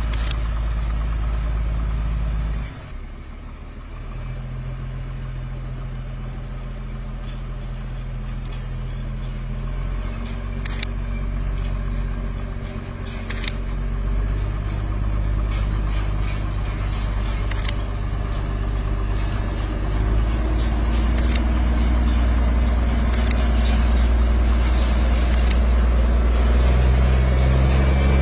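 Diesel locomotive engine running under load while hauling a train. Its low drone shifts pitch in steps several times and grows louder toward the end. A few brief sharp clicks sound now and then.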